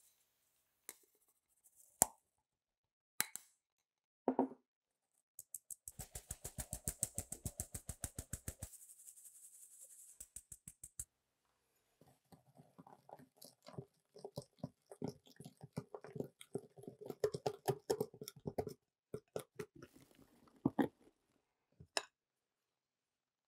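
Flour mix sifted through a hand-held metal sieve over a glass bowl, the sieve shaken in a quick, even run of taps, about ten a second. Then a wire balloon whisk stirs the flour into the batter in the glass bowl with irregular scraping strokes, and knocks against the bowl a few times near the end.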